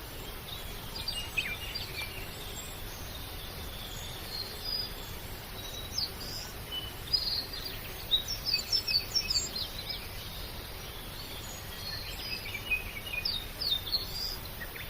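Birds chirping, many short high calls scattered over a steady background hiss, with a busier burst of chirping in the middle and again near the end.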